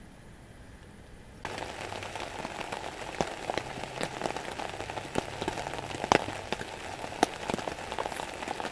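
Heavy rain falling on a tent's fabric: a dense, even patter with many sharper single drop hits, starting abruptly about a second and a half in after a faint hiss.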